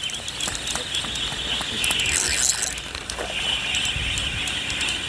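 Fishing reel being cranked, a run of fine mechanical clicks over a steady hiss, as a hooked hairtail is reeled in.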